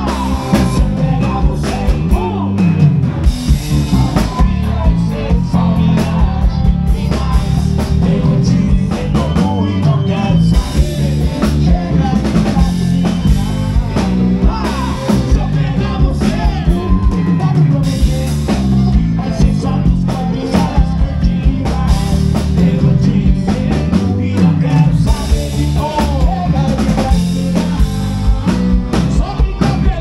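Live band music over a PA: a drum kit keeping a steady beat under bass, guitar and accordion, with a man singing into a microphone.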